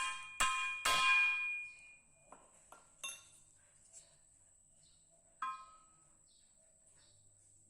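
Metal struck twice, each strike ringing with a clear bell-like tone that fades over about a second. Then come a few faint taps and one lighter ringing strike about five and a half seconds in.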